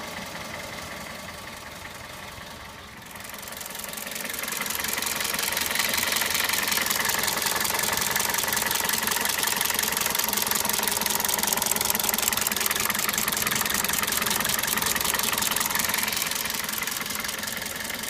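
Toyota 1ZZ-FE 1.8-litre four-cylinder engine idling with a rapid ticking clatter like valve tap, which comes from defective spark plugs. The sound grows louder about four seconds in, then holds steady.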